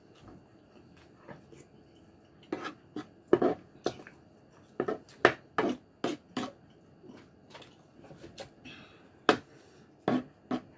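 Close-miked eating sounds: irregular sharp clicks and wet smacks of chewing, mixed with a spoon knocking and scraping in a wooden bowl of pork and sauce.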